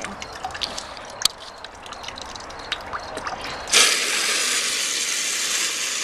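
A homemade custom toilet flushing. A few small drips and clicks come first, then nearly four seconds in a steady rush of water starts suddenly.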